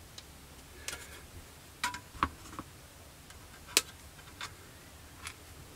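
Scattered light clicks and taps, about seven in all with the loudest near the middle, from small plastic model-kit parts and tools being handled on a workbench.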